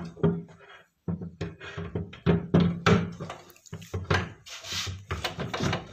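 Wooden drawer being fitted onto its bottom-mounted roller runners and slid into the cupboard: a run of short wooden knocks and thuds with rolling and scraping between them.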